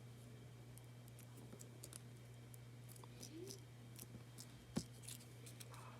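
Faint scattered clicks and light taps of small paper craft pieces being handled and placed, with one sharper click a little before five seconds in, over a steady low hum.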